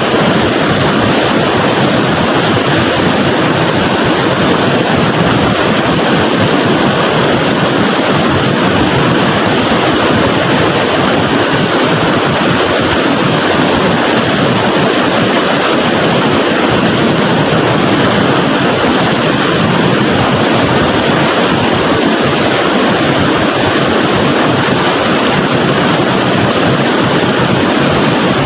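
Floodwater in a swollen river rushing past in a steady, unbroken wash of water noise.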